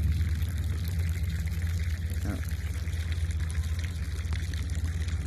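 Steady running, trickling water over a constant low hum, typical of a backyard pool's circulating water.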